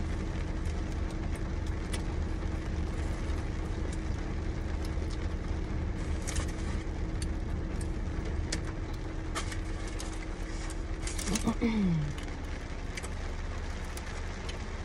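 Takeout food being handled and eaten: scattered light clicks and crinkles of a plastic container and paper wrapping over a steady low hum in the car cabin. The low hum drops away about eight seconds in. About eleven seconds in comes a short, falling vocal hum.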